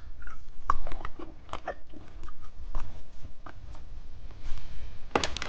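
Close-up mouth sounds of a hamburger candy being bitten and chewed: scattered small clicks and smacks, with a few sharper bites about five seconds in.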